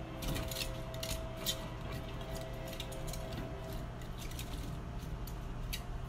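Raw asparagus spears clicking and knocking against each other and a glass baking dish as they are rolled around by hand, a rapid scatter of light clicks that thins out after the first second or so.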